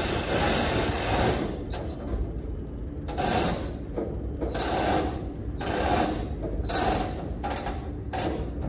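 Mechanical noise of a forklift unloading bundled I-joists from a lumber rail car: steady for about the first second, then coming in about six short, irregular surges.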